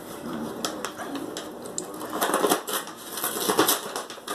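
A large crinkly paper bag rustling and crackling as a cat rolls on it and paws at it, busiest in the second half.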